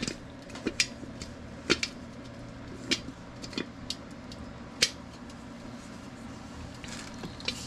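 A screwdriver tightening the loose handle screw in the middle of a metal fire-pit grill lid: scattered small metallic clicks and scrapes, irregular and about a second or so apart, over a steady low hum.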